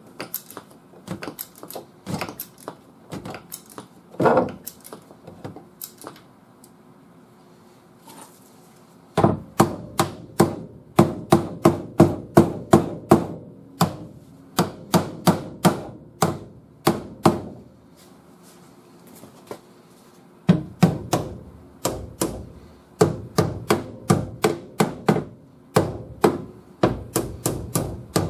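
Ball-peen hammer striking the crumpled steel rear body panel of a unibody car to work the damage out. At first it gives scattered light taps, then runs of short, dull blows about two a second, with a pause of a couple of seconds before the blows resume.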